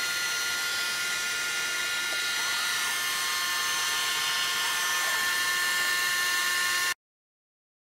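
Smiths vertical gyro running: its spinning rotor gives a steady high whine of several pitches over a hiss, with a couple of faint brief glides in pitch. It cuts off suddenly near the end.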